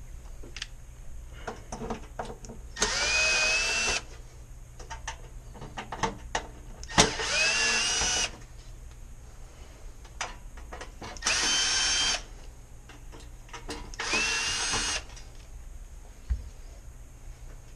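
Power drill-driver running in four short bursts of about a second each, the pitch rising as the motor spins up, backing out the screws that hold an oven door's glass frame. Light clicks and knocks of parts being handled come between the bursts.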